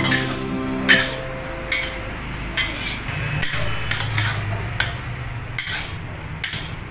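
Metal spatula scraping and knocking against a wok while stir-frying vegetables and egg, in irregular strokes about once or twice a second.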